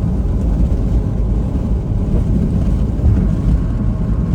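Steady low road and engine noise inside a moving car cruising at speed.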